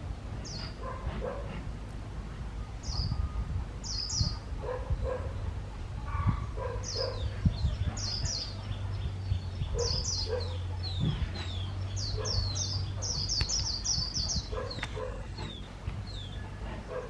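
White-eye (Zosterops) singing its high, twittering 'líu' song: short, quick, downward-slurred chirps that run together into a fast rapid series near the middle. A lower call repeats at intervals over a low hum with occasional thumps.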